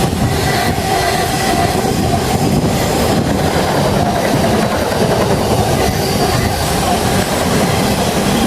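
Train running on the rails: a loud, steady, continuous rumble.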